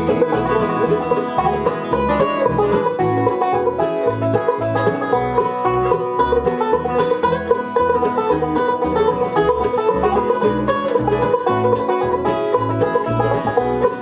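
Acoustic bluegrass band of guitar, mandolin, banjo and bass playing an instrumental break with no singing: quick picked string notes over a steady pulsing bass beat.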